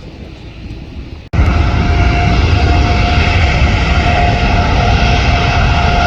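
Jet airliner passing low overhead, a loud rumble with a steady engine whine. About a second in, the sound jumps suddenly from fainter background noise to full loudness.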